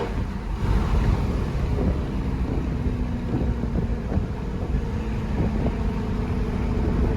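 A 2018 Jeep Grand Cherokee SRT's 6.4-litre V8, fitted with a Borla cat-back exhaust and an AFE cold air intake, running steadily at low revs. It gives an even, low rumble with faint steady tones over it.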